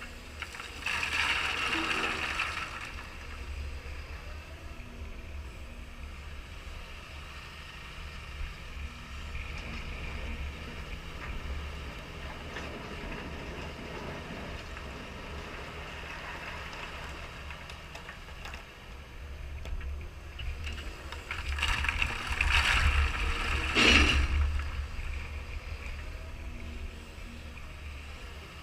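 Caterpillar 320E excavator stockpiling stone: its diesel engine runs steadily, with two louder spells of stone clattering and scraping as the bucket works the pile, a short one about a second in and a longer one around twenty-two seconds in.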